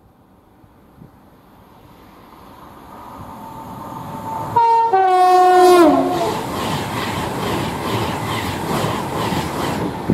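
A Class 390 Pendolino electric express passes through at speed. The rumble of its approach builds, then about halfway through it sounds its two-tone horn, a higher note then a lower one, which drops in pitch as the train goes by. The carriages then rush past with a regular clatter of wheels over the rail.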